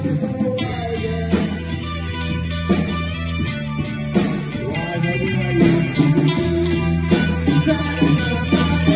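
Live rock band playing through an amplified PA: distorted electric guitar and bass guitar over a drum kit, with a steady beat.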